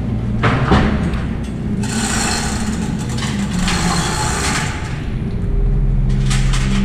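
Hand chain hoist being worked: the steel chain rattles and clanks as it is pulled, with a denser run of rattling from about two to four and a half seconds in, over a steady low hum.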